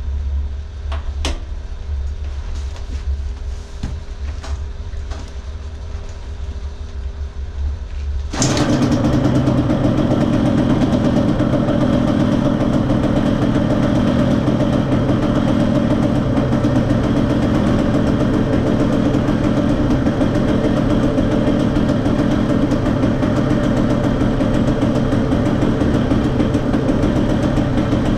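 A low rumble with a few clicks, then about eight seconds in a dirt bike's engine comes in suddenly, loud, and runs steadily at idle.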